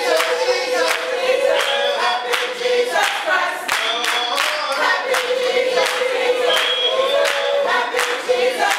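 A choir singing together without instruments, with steady rhythmic hand clapping on the beat.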